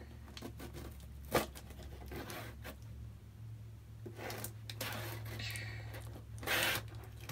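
Fingernails picking, scraping and tearing at the tape and flap of a cardboard mailer box, with one sharp click about a second and a half in and a longer tearing rasp near the end. A low steady hum runs underneath.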